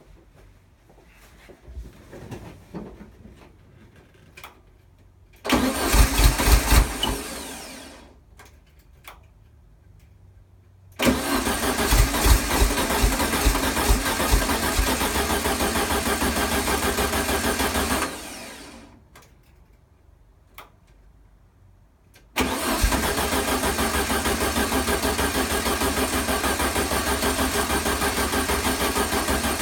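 1973 VW Super Beetle's air-cooled flat-four being cranked on the starter in three tries: a short burst, a longer one, and a third that keeps going. The engine is trying to start but not running properly, which the owner puts down to a fuel delivery problem and a battery running low.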